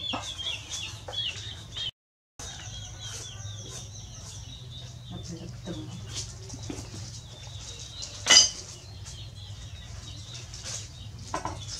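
Chickens clucking for the first two seconds, then small knocks and rustles of kitchen things, with one short loud clatter about eight seconds in. The sound drops out completely for a moment just after two seconds.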